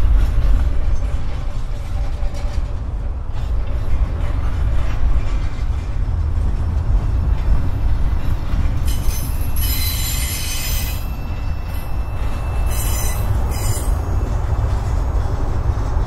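A freight train's cars rolling past with a steady low rumble. About nine seconds in and again around thirteen seconds, there are brief high-pitched wheel squeals.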